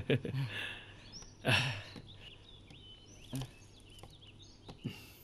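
A man's short, breathy laughter, with faint bird chirps in the background and a few small knocks.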